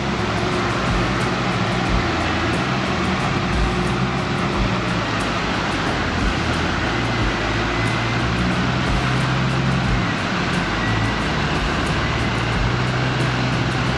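Jeep engine running at low speed while crawling along an off-road trail, its low rumble shifting up and down with the throttle.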